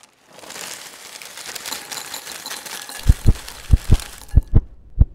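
Intro sound effect: a crackly hiss that swells up and fades. From about three seconds in come deep double thuds, paired like a heartbeat.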